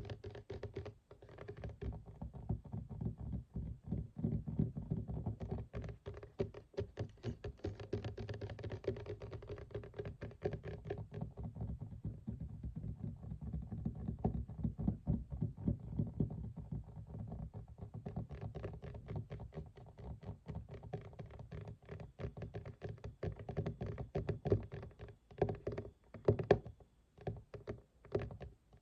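Fingers and fingernails tapping and scratching on a desk surface in quick, continuous succession, with dull low thunks and brighter scratchy stretches in places.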